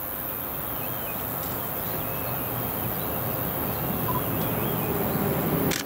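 SBB RABe 511 Stadler KISS double-deck electric multiple unit approaching on a curve, its steady rolling rumble slowly growing louder as it nears. Faint bird chirps sound over it.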